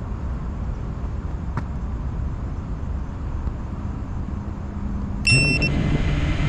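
Low steady background rumble, then about five seconds in a 5-inch FPV drone's brushless motors arm with a short high beep and start spinning at idle with a steady low hum, just before take-off.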